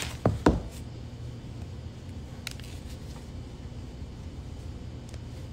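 A few light knocks and clicks in the first second, with fainter ticks later, from hands handling a small plush toy and its packaging, over a steady low background hum.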